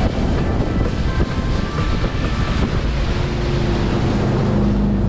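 A boat's motor running under way, with wind buffeting the microphone and the rush and slap of choppy water. A steadier engine hum comes forward near the end.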